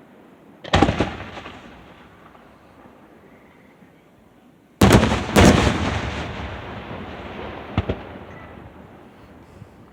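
Aerial fireworks shells bursting with loud bangs, each followed by a long rolling echo: one about a second in, two close together about five seconds in, and a smaller one near eight seconds.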